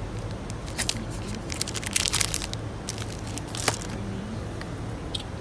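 Plastic snack wrapper crinkling as it is handled close to the microphone, in short crackly bursts that are densest about two seconds in, over a steady low hum.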